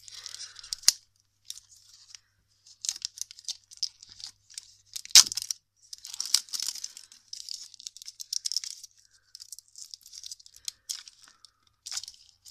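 Clear plastic shrink-wrap being torn and peeled off a small plastic slime jar: irregular crackling and crinkling in stretches, with one sharp snap about five seconds in.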